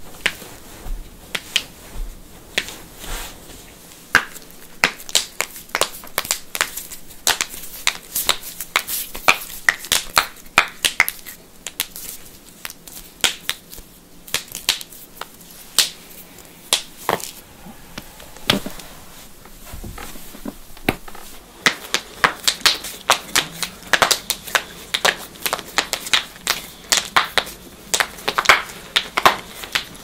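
Human joints cracking, toes pressed through socks and then finger knuckles, in a long irregular run of sharp pops and clicks. The pops come thickest and loudest in the last third.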